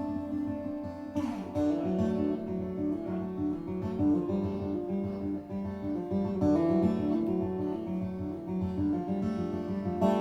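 Acoustic guitar playing a song's instrumental intro: picked notes moving in a repeating pattern, with a strummed chord about a second in.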